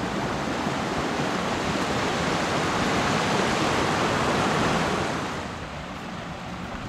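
Shallow mountain stream rushing over a bed of stones, a steady noise that grows fainter about five seconds in.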